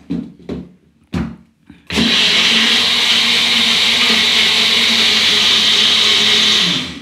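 Small personal bullet-style blender, its cup pressed down onto the motor base, runs steadily for about five seconds blending a banana and soy-milk smoothie, then stops. A few short knocks come before the motor starts, a bit under two seconds in.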